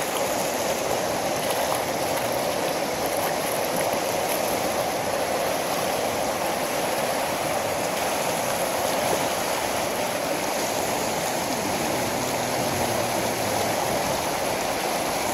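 Class 3 whitewater rapid rushing steadily as fast water pours over and around large boulders.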